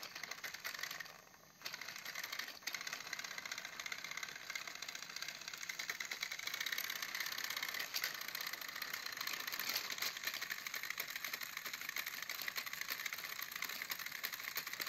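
Two battery-powered toy Thomas and Percy engines pushing head to head on plastic track, their small electric motors and gearboxes whirring with a steady rattle. The sound dips briefly about a second in.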